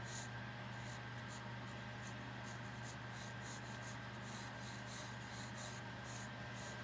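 Wooden graphite pencil scratching on sketchbook paper in short, quick strokes as circles are sketched lightly, with a steady faint hum underneath.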